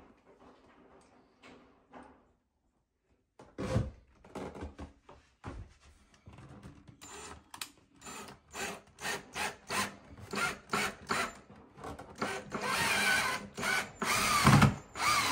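Ryobi cordless drill driving screws through a wooden shelf into the wall: the motor runs in short bursts, then in a longer run of a couple of seconds near the end, with a few knocks of wood being handled before it starts.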